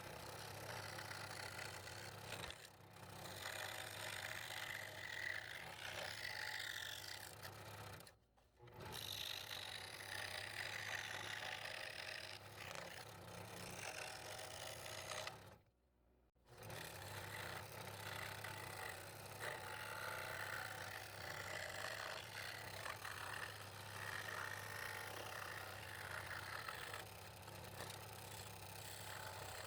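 Scroll saw running, its reciprocating blade cutting fretwork in wood with a steady motor hum. The sound breaks off twice for a moment, about eight and sixteen seconds in.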